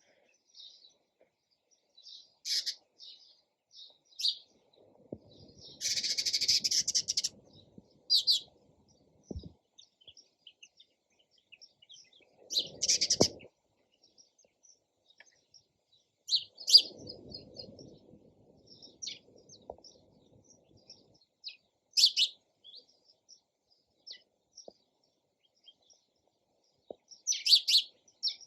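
Sparrows chirping in short, separate bright chirps, with a denser run of rapid chirps about six seconds in. A low rustling noise sits underneath a few times.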